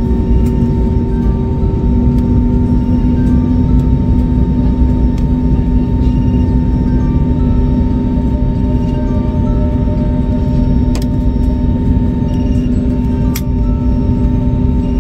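Steady low rumble of an airliner cabin, overlaid with ambient music: long held drone tones and a few soft, scattered higher notes.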